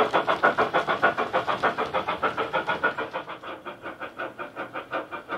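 Model steam locomotive sound from a Loksound 5 decoder playing a GWR Hall-class steam sound file through a megabass speaker: rapid, even exhaust chuffs, about six a second, growing steadily fainter as the train runs away.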